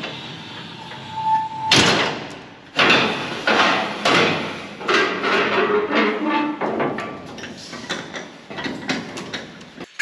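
Green-and-yellow combine's fold-down metal access ladder being swung down: a brief squeak, then a loud metal clank. It is followed by a run of irregular metal knocks and bangs as the machine's steps and panels are worked.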